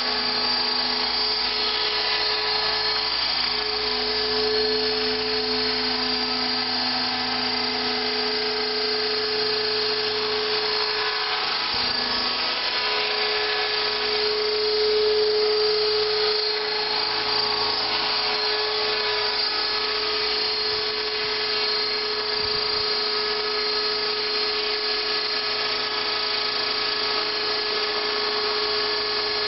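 Align T-Rex 600 electric RC helicopter in an MD 500 scale fuselage hovering and flying: a steady whine of the electric motor, drive gears and rotor, its pitch shifting slightly now and then as it manoeuvres.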